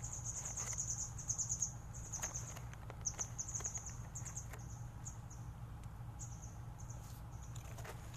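High-pitched insect trilling in rapid pulsed trains, strongest in the first couple of seconds and breaking up and fading toward the end. A few soft clicks and crunches come through underneath as dogs eat snacks off the gravel.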